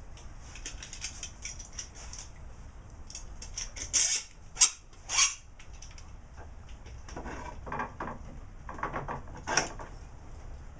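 A metal clamp being handled and fitted onto a wooden box: a few sharp knocks and clatters about four to five seconds in, then scraping and rattling, and one more knock near the end.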